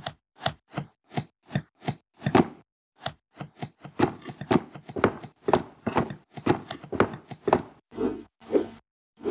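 Cartoon sound effects of cardboard boxes being set down and stacked: a quick run of short knocks and thumps, two or three a second, some with a sharp click on top. Two longer pitched blips come near the end.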